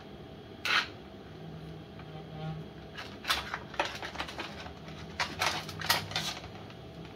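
Metal reciprocating saw blades clinking and clattering as they are handled and sorted through: one sharp clink at about a second in, then a run of clinks and rattles from about three seconds in.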